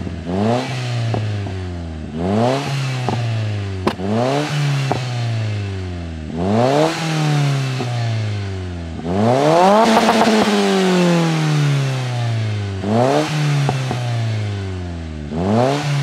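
Mitsubishi Colt CZT's turbocharged 1.5-litre four-cylinder revved repeatedly while standing still, heard at the tailpipe: about seven quick revs that rise and fall back to idle, with one longer, higher rev about ten seconds in.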